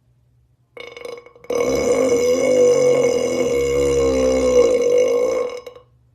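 A person's long, loud burp: a rough start about a second in, then a sustained pitched burp with a slightly wavering tone that lasts about four seconds.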